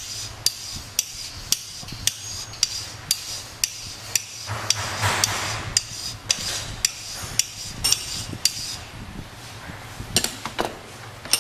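Flat file worked back and forth across a clamped steel block, filing a reference face flat: regular scraping strokes, about two a second, each with a sharp click. The strokes stop about three-quarters of the way through, and a few clicks follow near the end.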